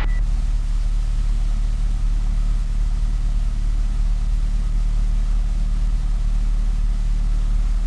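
Cessna 172's piston engine running steadily at low power, a constant low hum heard from inside the cockpit.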